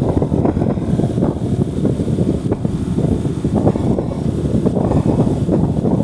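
Loud, gusty wind buffeting the microphone of a phone carried on a moving motorcycle, a continuous low rumble that rises and falls.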